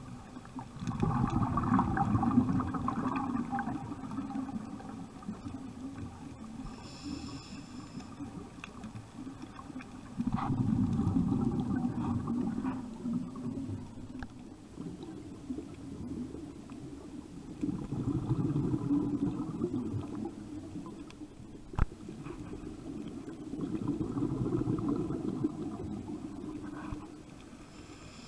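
Scuba diver breathing through a regulator underwater: four bubbling bursts of exhaled air, each about three seconds long and roughly seven seconds apart, with a brief hiss of inhalation between them. A single sharp click comes about three quarters of the way through.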